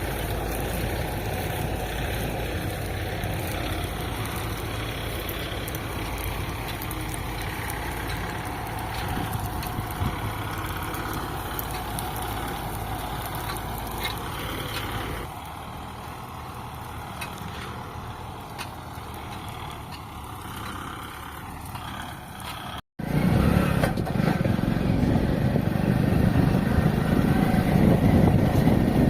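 Diesel farm machinery engine running steadily during wheat harvesting. It drops a little in level about halfway through, then after a sudden break near the end comes back louder and deeper.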